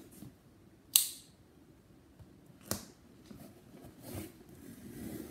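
A curved-blade folding knife snaps open with one sharp click about a second in, and a smaller click follows a couple of seconds later. Near the end the blade scratches and slices through packing tape on a cardboard box.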